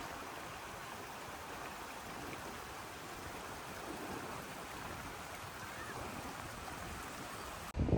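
Steady rushing of a mountain stream. Just before the end, a louder, irregular low rumble on the microphone breaks in.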